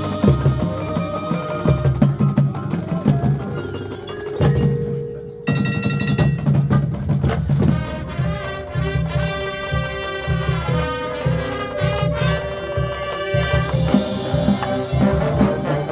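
Marching band playing: steady drum hits with brass, and bright bell-like mallet tones coming in about five seconds in, followed by held brass chords.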